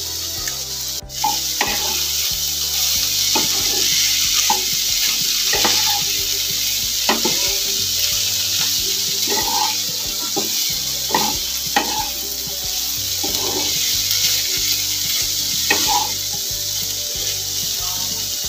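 Mixed vegetables and ground spices sizzling in oil in a nonstick wok as a spatula stirs them, with short scrapes of the spatula against the pan every second or so.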